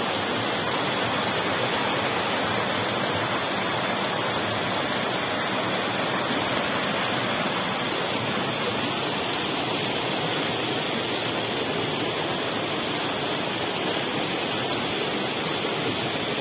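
Creek water rushing steadily over rocks in a small cascade.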